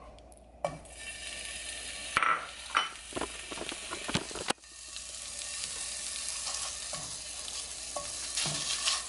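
Raw ground beef starts sizzling as it drops into a hot nonstick frying pan, less than a second in. It then fries with a steady hiss while a wooden spatula scrapes and taps against the pan.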